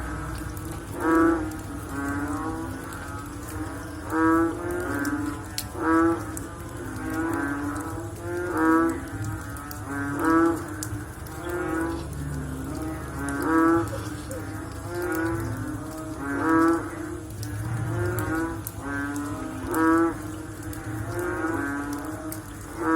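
Frogs calling after rain: a chorus of low, drawn-out, lowing calls, with a loud call every couple of seconds and quieter calls overlapping between them.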